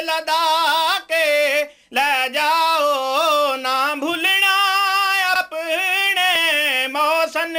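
A man singing a slow devotional chant solo and unaccompanied into a microphone, a manqabat in praise of Ali in Punjabi. He holds long, wavering melismatic notes, with a short breath about two seconds in and another about four seconds in.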